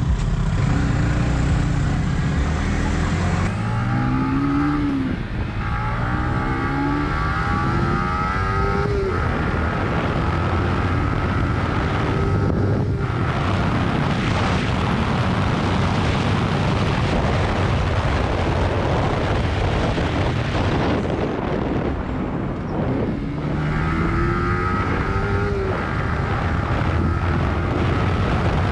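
Yamaha YZF-R15 single-cylinder engine accelerating, its note climbing in pitch and dropping back at each gear change, twice: early on and again about three quarters of the way through. Heavy wind noise on the microphone from riding at speed fills the stretch in between.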